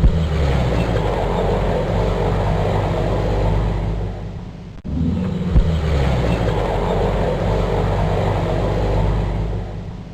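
Tomo Vinković tractor engine running steadily, hauling firewood. The sound drops out briefly about five seconds in and starts again, as a repeating loop.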